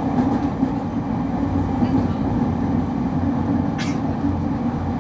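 Running noise heard inside a JR East 209 series electric train's motor car: a steady rumble of wheels on rail and traction motors, with one brief sharp click about four seconds in.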